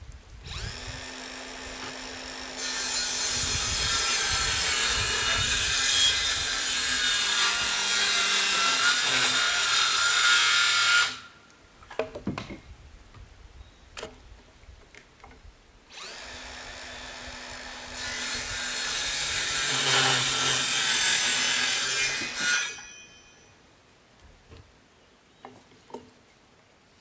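A handheld power tool cuts into a small wooden block in two long runs, about ten seconds and then about seven, each stopping abruptly as the motor is switched off. Light knocks and handling clicks of the wood come between the runs and after.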